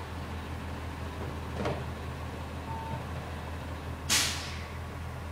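Garbage truck engine running steadily, with a loud burst of air-brake hiss about four seconds in that fades within half a second.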